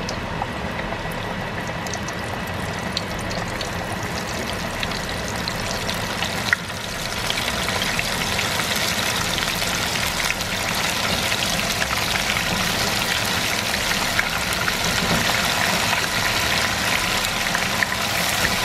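Floured cod fillets deep-frying in very hot canola oil at about 400 degrees, the oil sizzling and crackling steadily. It jumps louder about six and a half seconds in and grows busier as more fillets are dropped in.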